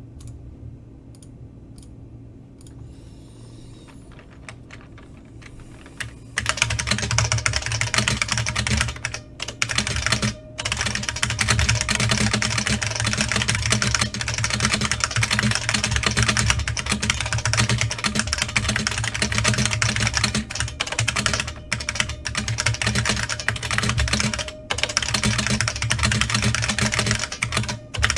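New Model F F77 capacitive buckling-spring keyboard with New Model F key caps being typed on fast and continuously, starting about six seconds in, with a few short pauses. Before that there is only a faint low hum.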